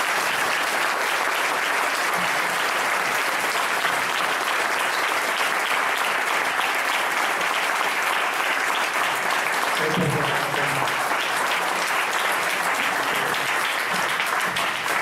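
Audience applauding steadily. A brief voice is heard about ten seconds in.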